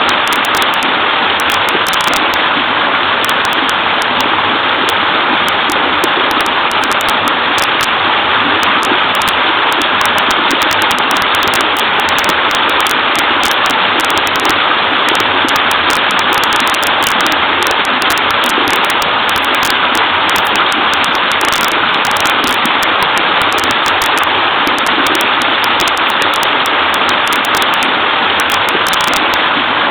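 Small waterfall in a stream, water falling and splashing in an even, unbroken rush.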